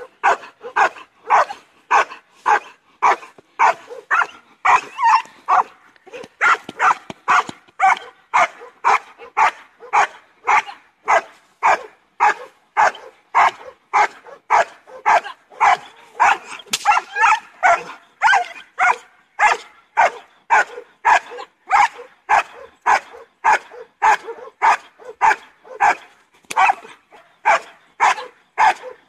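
Young German shepherd barking steadily and rhythmically, about two barks a second without a break, at a decoy holding a bite sleeve in protection training.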